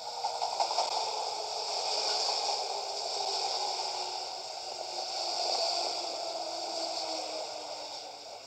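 JR West 221 series electric train running past at close range, a steady rolling rumble and hiss of wheels on rail, with a faint whine that falls slowly in pitch as the train slows.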